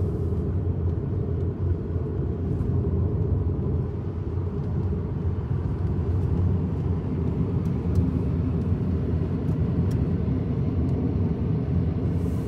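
Steady road and engine rumble inside the cabin of a car driving along a highway.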